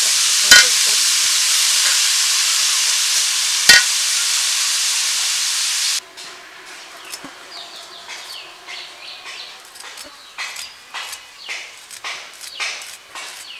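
Chopped bitter gourd frying in hot oil in a large aluminium wok, a loud steady sizzle with two sharp clicks of a metal spatula against the pan, cutting off suddenly about six seconds in. Then, much quieter, a whole bitter gourd being sliced against a boti's curved blade, short crisp cuts about two or three a second from about ten seconds in.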